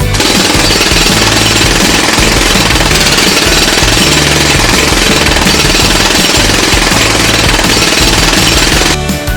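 A loud, continuous rapid rattling noise that starts abruptly and cuts off about nine seconds in.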